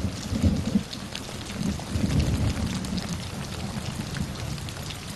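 Heavy rain falling, with deep rumbles swelling and fading underneath.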